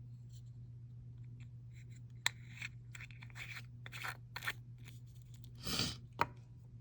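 Small powder jars and their plastic packaging being handled: scattered clicks and short crinkly rustles over a steady low hum. Near the end comes one sharp sniff through the nose.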